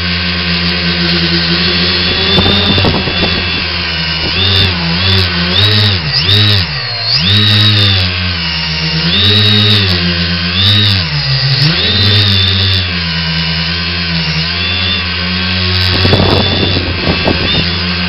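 X900 tricopter's three brushless motors and propellers buzzing in flight, the pitch dipping and climbing back several times in the middle as the throttle is worked. Two short rushes of wind noise, one a couple of seconds in and a louder one near the end.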